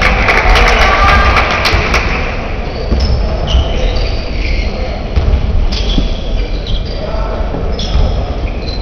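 Basketball being played on a wooden gym floor: the ball bouncing, sneakers squeaking in short high chirps, and players' and spectators' voices, over a steady low rumble.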